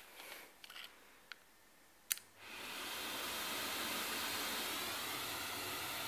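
A few light handling clicks, then a sharp click about two seconds in, and the Beam central vacuum comes on: air rushing through the hose and wand rises over about half a second and holds steady.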